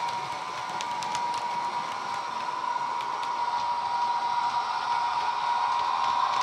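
Sound decoder of a model Class 86 electric locomotive, played through its small speaker: a steady rush of traction blower fans with a steady whine, growing slowly louder as the model approaches.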